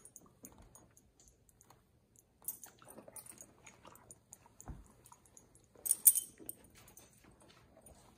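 Small clicks and rattles, with short metallic jingles of a dog's collar tags about two and a half and six seconds in, the second the loudest, and a dull thump near the middle.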